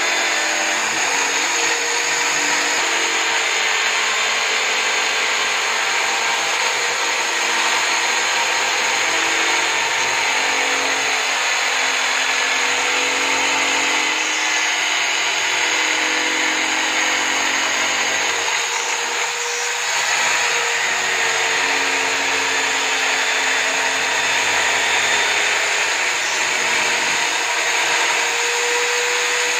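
An electric drill used as a homemade sander, running continuously while sandpaper grinds against the edges of a wooden cut-out pressed to it. The motor pitch wavers as the work is pushed on, and the noise eases slightly about two-thirds of the way through.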